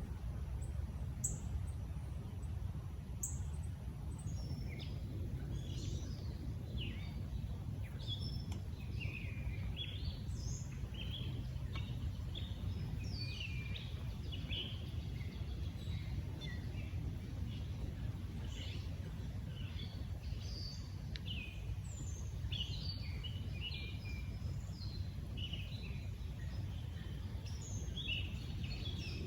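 Several songbirds chirping and calling in quick, short notes, busier from about four seconds in, over a steady low background rumble.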